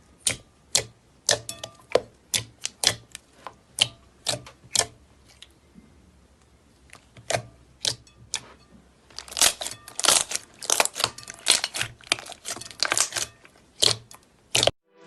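Slime being worked by hand, giving sharp clicks and pops: single clicks about twice a second at first, then a dense crackling run of them in the second half.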